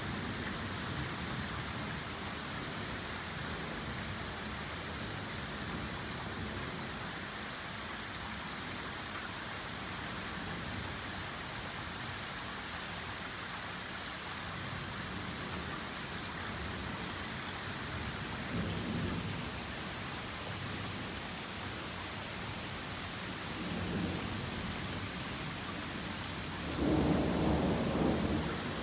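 Torrential rain pouring steadily in a thunderstorm, with low thunder rumbling three times: briefly about two-thirds in, again a few seconds later, and loudest just before the end.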